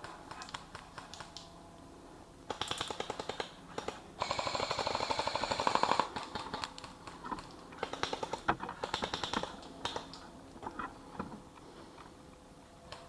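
Airsoft guns firing in rapid clicking bursts, with a louder, denser full-auto burst of about two seconds around four seconds in.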